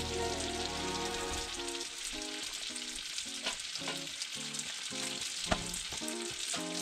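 Bacon and pasta sizzling steadily on a propane skottle griddle, with a few sharp clicks. Light melodic background music joins about a second and a half in.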